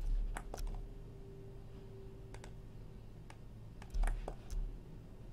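Scattered sharp clicks of a computer keyboard and mouse being worked, with a quick cluster about four seconds in and low thuds on the desk at the start and around four seconds.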